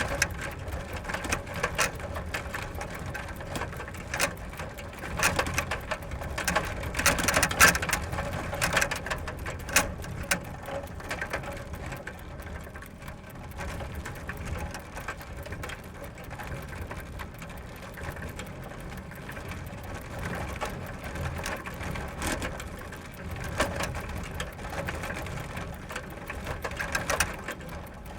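Bicycle ridden fast over gravel: tyres crunching over loose stones in a steady noise full of small clicks. It is louder about four to ten seconds in and again near the end, quieter in between.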